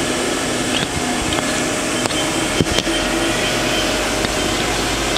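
Spindle of a 1990 Mori Seiki SL-15MC CNC turning center running at a few thousand RPM, a steady whir of spindle and drive with a few sharp clicks around the middle.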